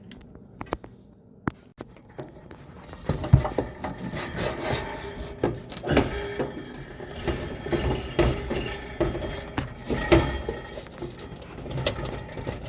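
Hands working wires and sheet-metal parts loose inside a dryer while taking out the heating element housing: a few sharp clicks at first, then from about three seconds in a steady run of rubbing, scraping and clinking with scattered knocks.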